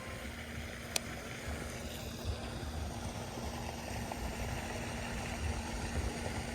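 Uneven low rumble of wind on the microphone over a faint steady hum, with a single sharp click about a second in.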